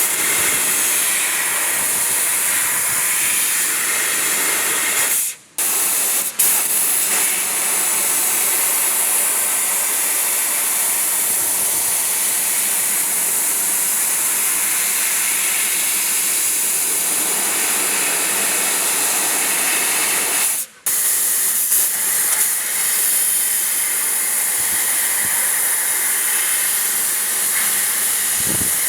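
4000 W fiber laser cutting machine cutting metal: a loud, steady hiss of the assist-gas jet blowing through the cut from the cutting head. It breaks off for a moment twice, about five seconds in and again about twenty seconds in.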